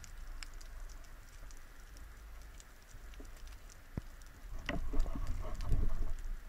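Sea water around the diver: faint scattered clicking and patter with a low rumble, then louder irregular water sloshing from about two-thirds of the way through.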